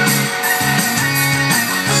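Rock karaoke backing track playing its instrumental ending: guitar over steady bass notes and a regular beat, with no vocal.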